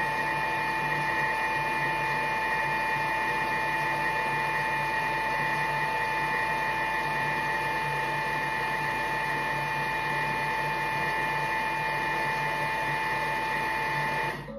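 Thermomix TM6 food processor motor running steadily at speed 4, mixing batter, with a constant whine over its hum; it stops abruptly near the end.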